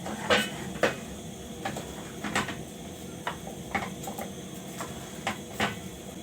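Irregular sharp knocks and clatter of a cooking utensil against a metal pot, about eight in all, over a steady kitchen hum that cuts off suddenly near the end.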